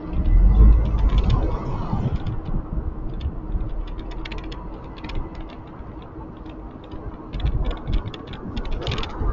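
Riding noise from a handlebar-mounted camera in city traffic: wind buffeting the microphone and road rumble, strongest in the first two seconds, with irregular light clicking and rattling from the handlebar and a faint steady hum.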